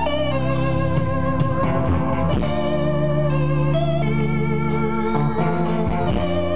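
Live rock band playing an instrumental passage with electric guitars, loud and steady, with held notes that waver slightly in pitch.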